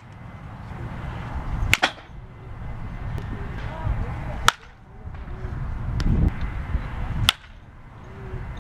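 Wooden baseball bat hitting pitched balls in a batting cage: three sharp cracks about three seconds apart, one per swing.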